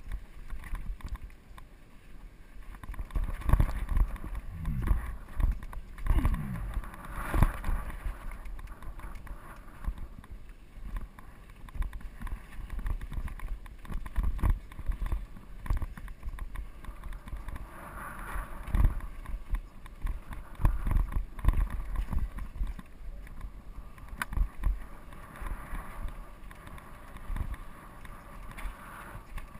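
Steel hardtail mountain bike riding rough dirt singletrack: tyres crunching over dirt and rocks, the bike rattling with frequent knocks over bumps, and wind rumbling on the microphone.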